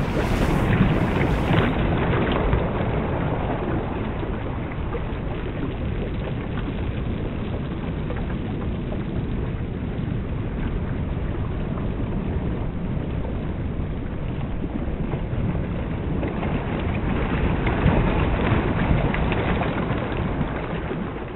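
A steady rushing noise of wind and sea surf, heavy in the low end, swelling a little near the end before it starts to fade out.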